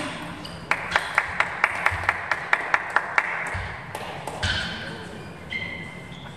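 A table tennis ball bouncing in a quick, even series of about a dozen light clicks, four to five a second, which stops about three seconds in. Then come a few brief squeaks of sports shoes on the hall floor.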